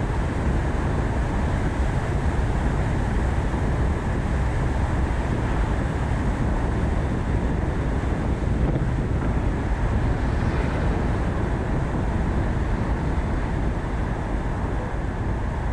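Ford Focus ST being driven: a steady low rumble of road and engine noise with some wind on the microphone.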